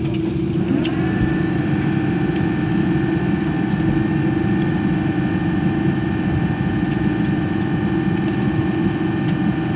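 Airbus A330-300 cabin noise while taxiing after landing, heard inside the cabin: a steady low jet-engine rumble with a constant whine. About a second in, a higher whine rises briefly and then holds steady.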